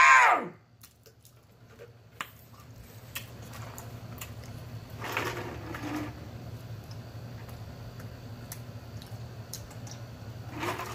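A person drinking tea from a large plastic jug in long, steady gulps, with small mouth and bottle clicks, close to the microphone; a louder swallow comes about five seconds in.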